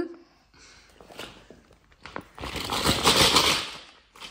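Small plastic toy building blocks rattling and clattering inside a clear plastic tub as it is handled. There are a few light clicks first, then a dense clatter for about a second and a half past the middle.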